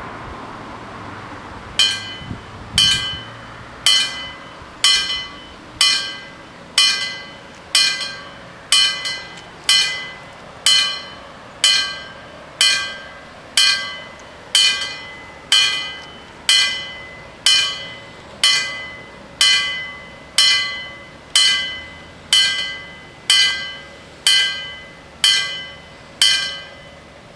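Level crossing warning bells striking about once a second, each stroke ringing and fading before the next; they start nearly two seconds in and stop near the end.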